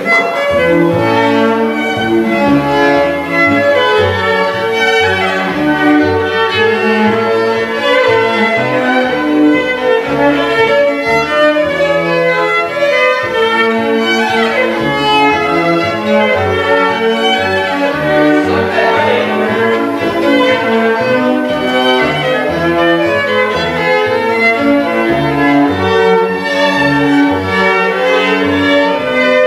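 A string ensemble on period instruments (two violins, viola, cello and double bass) bowing a dance tune, with a continuous melody over a steady bass line.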